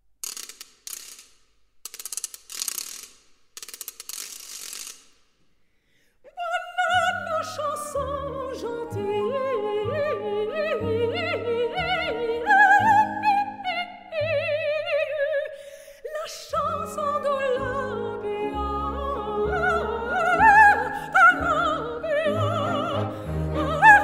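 A few short ratcheting bursts like a clockwork winding sound, a brief silence, then a coloratura soprano singing fast, high runs over an orchestra from about six seconds in.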